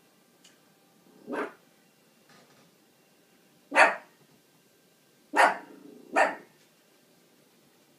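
Dog barking: one softer bark about a second in, then three loud, short barks, the last two close together.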